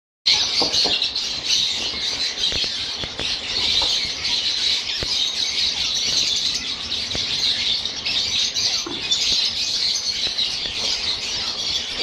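Many small caged parrots, lutino peach-faced lovebirds among them, chattering and squawking together in a dense, continuous din, with a few faint clicks.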